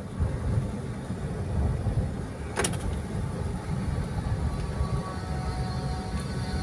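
Steady low rumble of a 2004 Ford Everest on the move, heard inside the cabin: engine and tyres on a concrete road. A single sharp click comes about two and a half seconds in.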